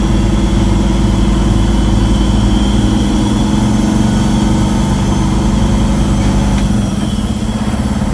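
Semi truck's diesel engine running steadily at low revs, heard from inside the cab while the rig creeps along, easing off slightly near the end.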